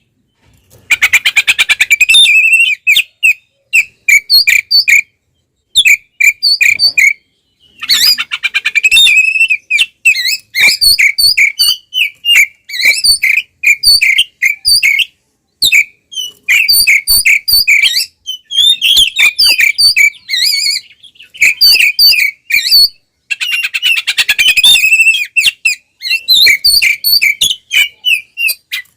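Male Oriental magpie-robin (kacer) singing loudly in its agitated fighting song. Fast buzzy trills alternate with runs of short, repeated whistled notes, with brief pauses between phrases.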